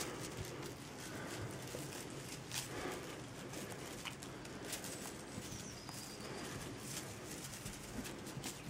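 Kittens playing with a feather wand toy on a plush blanket: rustling of fur, feathers and fabric with scattered soft taps and bumps. A faint short high chirp comes about six seconds in.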